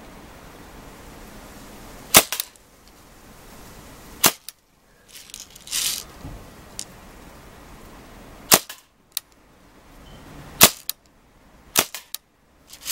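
Daisy 74 CO2-powered semi-automatic BB rifle firing about five sharp pops a few seconds apart, some followed a moment later by a fainter tick.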